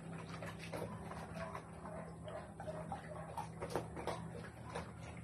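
Two dogs eating dry kibble: irregular crunching and small clicks of kibble and muzzles against metal bowls, over a steady low hum.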